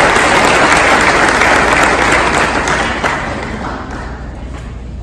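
Audience applauding, strong for about three seconds and then tapering off.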